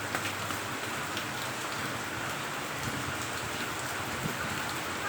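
Steady rain falling in an even hiss, with scattered drops ticking.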